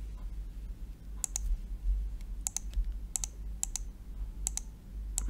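Clicks of a computer mouse and keyboard while text is selected and copied: about six short double clicks, irregularly spaced, over a low steady hum.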